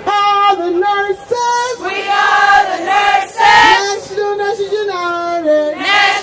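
A group of women singing a song together in unison, with long held notes moving step by step.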